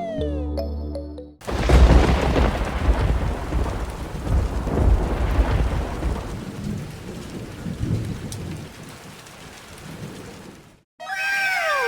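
Thunderstorm: a sudden thunderclap about a second and a half in, then rolling thunder over heavy rain, fading and cutting off suddenly near the end. Short tones that fall in pitch come just before it and again near the end.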